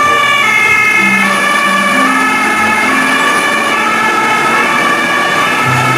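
German fire engine's two-tone siren (Martinshorn) sounding, alternating between a high and a low note about every three-quarters of a second.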